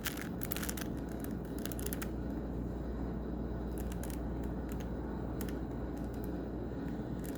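A Rubik's Cube being scrambled by hand: a run of quick plastic clicks and scrapes as the layers are twisted, thick in the first two seconds and sparser after, over a steady low hum.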